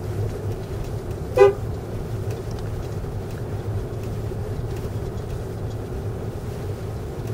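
Steady road and engine noise of a car driving, with one short car-horn toot about a second and a half in.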